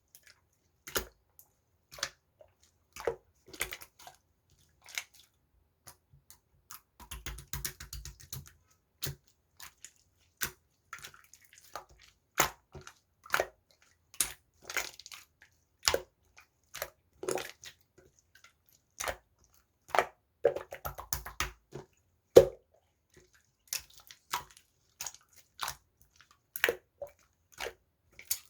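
Clear pearl slime worked by hand, giving sticky pops and clicks at irregular intervals, about one or two a second, with a longer stretch of squelching about seven seconds in.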